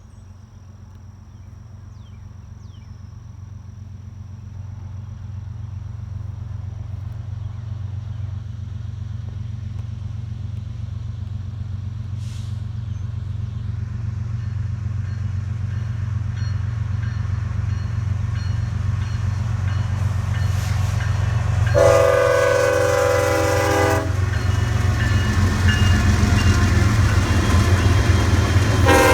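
BNSF diesel locomotives leading a manifest freight train approach, their low engine rumble growing steadily louder. The locomotive's air horn sounds a chord of about two seconds roughly three-quarters of the way through, and starts again at the very end.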